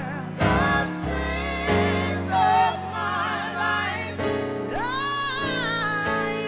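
Gospel vocal group singing in harmony, with a voice sliding up to a held high note a little under five seconds in.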